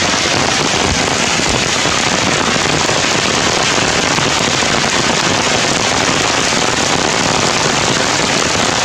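Heavy rain falling steadily on the forest canopy, a dense, even hiss of drops.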